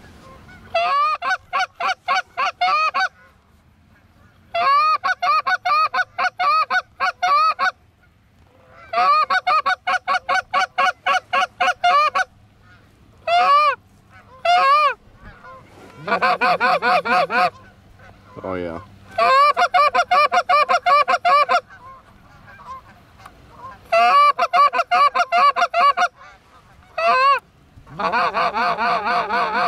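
Canada goose honks and clucks in rapid runs: about ten loud bursts, each from a fraction of a second to about three seconds long, with short pauses between them.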